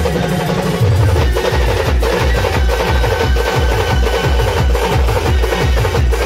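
Band drum section of large bass drums and smaller side drums beaten with sticks, playing a fast, steady, loud beat.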